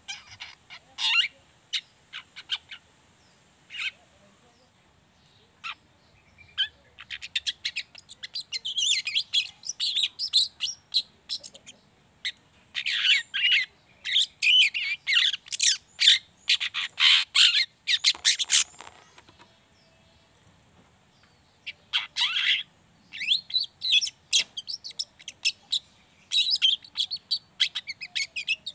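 Juvenile long-tailed shrike (cendet) singing its rambling, scratchy chattering subsong (ngriwik), the song of a young bird still learning its material. A few scattered calls come first, then quick dense runs of high notes, a pause of a few seconds about two-thirds through, and more runs to the end.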